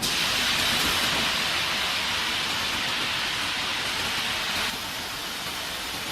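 Fiber cement board production line machinery running with a steady hiss. The hiss jumps louder at the start and drops back about four and a half seconds in.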